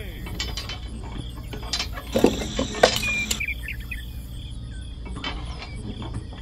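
Scattered light clicks and taps of small plastic toy parts being handled: a model fuel-pump nozzle and a miniature tractor. The taps are loudest and closest together about two to three seconds in, over a steady low hum.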